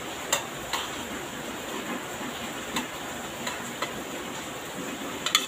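A metal spoon clinking and scraping against a ceramic plate of rice, about six sharp clicks with the loudest near the end, over the steady hiss of heavy rain.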